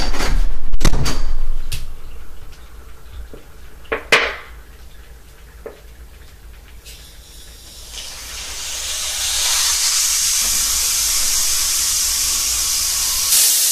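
Carbon dioxide from dry ice hissing out past the cap of a sealed plastic bottle, building from about eight seconds in and then holding steady: the gas is leaking instead of building pressure, which the experimenter puts down to the cap not being closed tightly enough. A few knocks and a low rumble come near the start.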